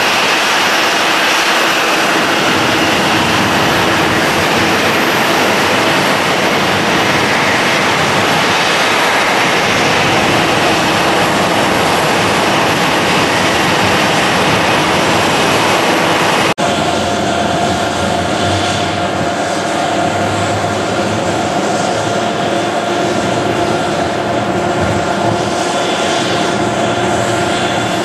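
Airliner jet engines running on the ground: first a Boeing 737-800's CFM56 turbofans at low power, a steady hiss with a held whine. Just past halfway the sound cuts abruptly to a Boeing 787 Dreamliner taxiing, its engines giving a steady whine with several clear held notes.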